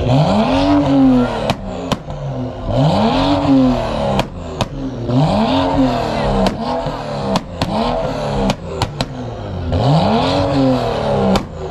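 A car engine revved five times in quick bursts, each rev climbing and dropping in pitch over about a second and a half, with sharp pops scattered between the revs.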